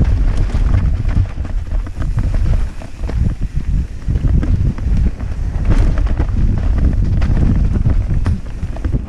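Wind buffeting a helmet-mounted camera's microphone on a mountain bike descent, a steady low rumble, with the rattle and knocks of the bike over a dirt trail scattered through it, one sharper knock a little past the middle.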